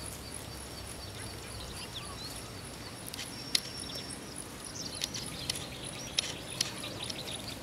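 Outdoor ambience with a steady high ticking about three times a second and a few short chirps, with several light clicks and knocks as roasted tomatoes are set onto a steel plate, the sharpest about three and a half seconds in.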